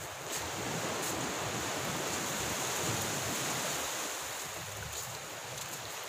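A steady rushing noise, like outdoor wind or surf, that swells for a few seconds and then eases off, with a faint high hiss over it.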